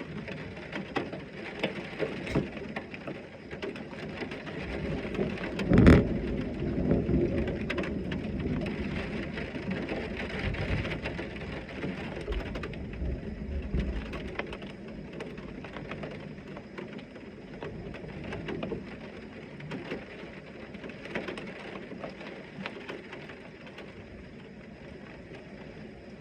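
Heavy rain falling steadily with many small drop ticks. About six seconds in, a thunder clap: a sharp crack followed by several seconds of low rumbling that fades away under the rain.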